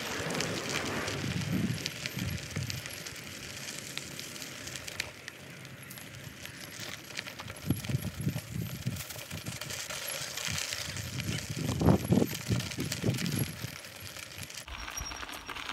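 Continuous crunching and crackling of loose gravel as someone moves along a gravel path, with a few low rumbles of wind or handling on the microphone.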